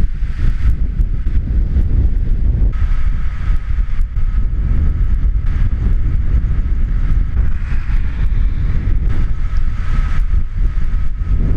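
Wind buffeting the microphone: a heavy low rumble that surges and eases in gusts without letting up.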